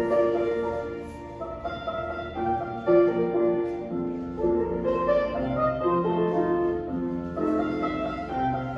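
Piano music playing a melody over chords, the accompaniment for a ballet exercise.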